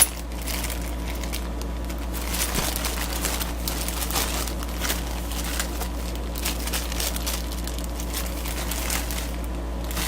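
Plastic packaging and parts rustling and crinkling as hands rummage through an air compressor kit, in irregular bursts over a steady low hum.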